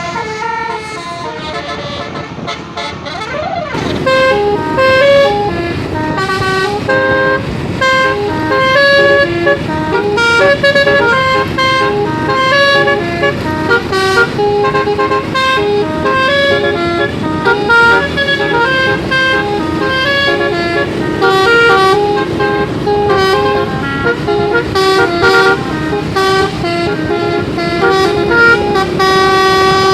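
Bus 'basuri' telolet horn, a 12-note musical horn with roof-mounted trumpets, playing a quick melody of many short stepping notes. It starts about three and a half seconds in, after a few seconds of duller vehicle noise, and runs on without a break.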